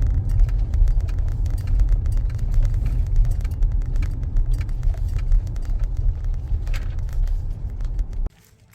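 A 2014 Honda CR-V driving, a steady low road rumble with many small clicks and crackles over it. It cuts off suddenly near the end.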